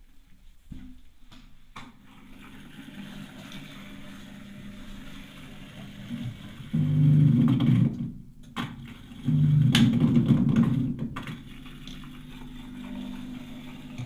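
Atlant washing machine running its drain, the drain pump humming steadily, with two louder surges of a few seconds each. The pump is struggling: it is a drain pump found to be jamming and crunching.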